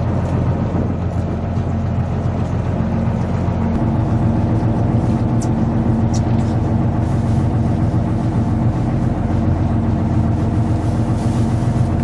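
Steady low hum of a fishing boat's engine running, its tone shifting slightly about four seconds in, with two short high clicks near the middle.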